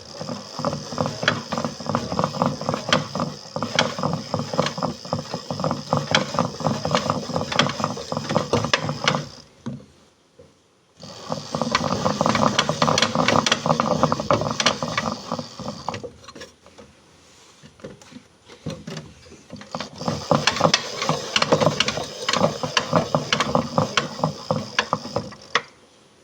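Washing machine running: a dense, rapid rattling clatter in three long stretches, separated by short quieter pauses.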